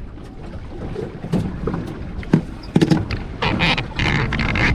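Wind and water noise around a drifting fishing boat, with a few sharp knocks on the boat and a splashy hiss starting near the end.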